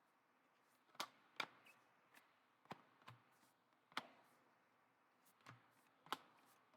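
Faint, scattered sharp taps and clicks, about seven of them at uneven intervals, over near silence.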